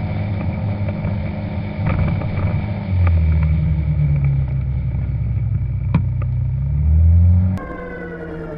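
A vehicle engine running steadily, its pitch stepping up about three seconds in, sagging, then climbing again near the end, with a few sharp clicks over it. It cuts off suddenly and a quieter engine takes over.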